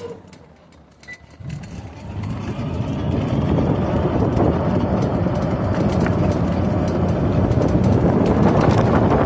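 Electric ATV getting under way: after a second or so of quiet, a rushing noise of wind on the microphone and rolling rumble builds over a couple of seconds and then holds steady as it rides.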